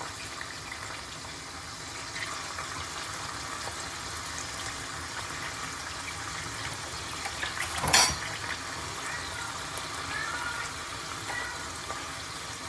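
Garlic, anchovies and chilies sizzling in oil in a frying pan, a steady hiss, with one sharp clank of a utensil against the pan about eight seconds in.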